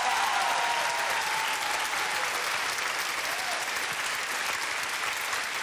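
Audience applauding steadily, a dense patter of many hands clapping that eases slightly over the seconds.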